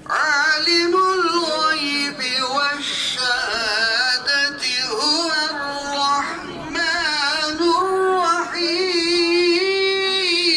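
A solo voice chanting in long, wavering, ornamented melismatic phrases, in the style of religious chant. It starts suddenly and loud.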